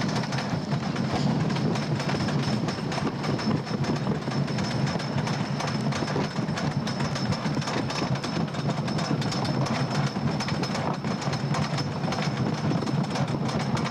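Wooden roller coaster train being hauled up the lift hill by its chain: a steady, rapid clacking of the lift chain and the anti-rollback ratchet.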